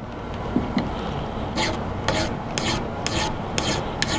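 Hand file rasping across a small piece of square steel stock clamped in a vise, flattening the top and taking off the sharp corners. The strokes start about a second and a half in and go evenly at about two a second.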